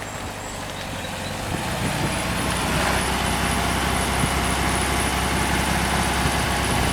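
Air-cooled VW Beetle 1600 single-port flat-four engine running steadily with the choke off, growing louder about two seconds in.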